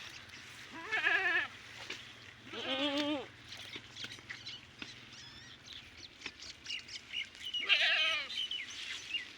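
Goat bleating three times, each a quavering call under a second long, about one second in, three seconds in and again near eight seconds.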